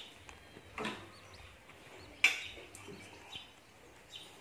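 Kitchen utensils being handled by a wok: a soft rustle about a second in, then one sharp knock with a short ring about two seconds in. Faint bird chirps in the background throughout.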